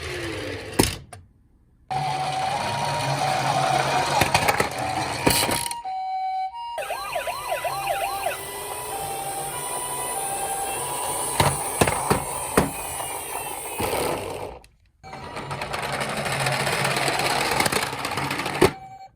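Toy minicar's electronic two-tone ambulance siren sounding, alternating between a high and a low note, with a rising and falling wail over it around seven to nine seconds in. A rushing, clicking noise from the toy running lies beneath, and the sound cuts out briefly three times.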